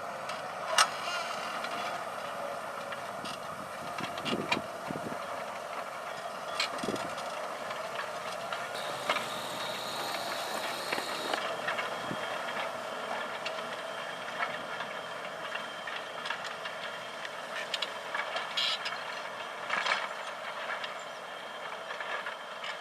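John Deere 8335R tractor's six-cylinder diesel engine running steadily under load while pulling a nine-furrow plough, with scattered knocks and rattles.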